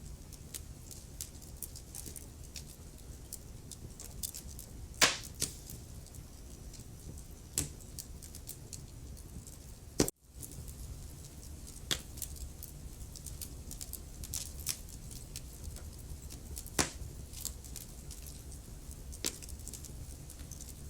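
Wood fire crackling in a fireplace: a low steady rumble of burning with irregular sharp pops and snaps, the loudest about five, ten, twelve and seventeen seconds in. Just after the pop at about ten seconds the sound drops out for a moment.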